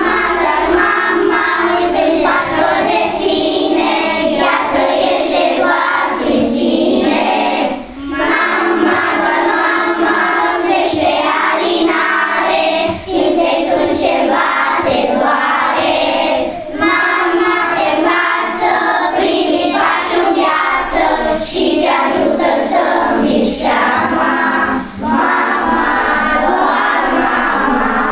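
A group of first-grade children singing a song together in chorus, in phrases with short breath pauses; the song ends near the end.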